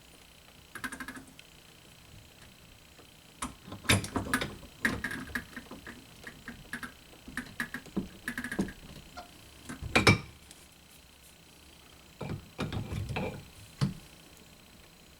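Wrenches clinking and knocking on a new water cutoff valve while it is tightened onto PVC pipe, the other side of the joint braced against it. The knocks come in irregular clusters, some with a short metallic ring.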